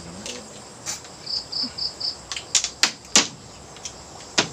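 Irregular sharp clicks and knocks, a few of them louder, with four short high chirps in quick succession about a second and a half in.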